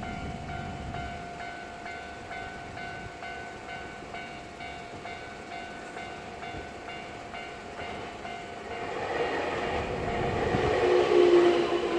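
Railway level-crossing warning bell ringing in a steady, evenly repeated electronic ding. About nine seconds in, the rumble of a Keio Inokashira Line train builds up and grows louder as it nears the crossing, with a low steady whine near the end.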